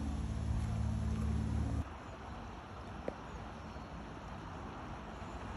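A low, steady engine hum that cuts off abruptly about two seconds in, leaving wind noise on the microphone and a steady rushing sound, with a single click about three seconds in.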